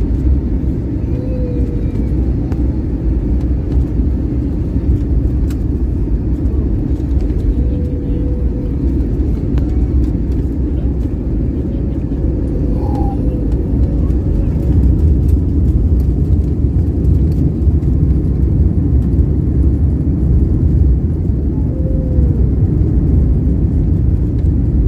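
Steady low rumble of an airliner during landing, dense and unbroken with no distinct events.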